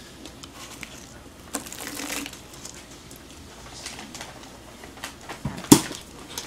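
Quiet hand-eating sounds as fingers tear apart fried chicken, with a short closed-mouth 'mm' hum about one and a half seconds in and a brief sharp vocal sound near the end.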